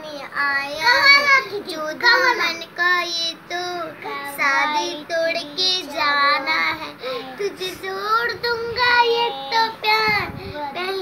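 A young girl singing a song unaccompanied in a high child's voice, with held, wavering notes.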